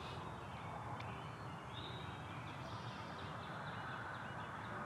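Faint birds calling in open woodland, a few short chirps and a brief trill over a steady background hiss.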